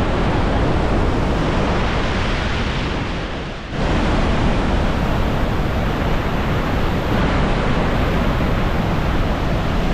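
The roar of the Iguazu Falls waterfall: a loud, steady rush of falling water. It sags briefly a little over three seconds in, then comes back suddenly.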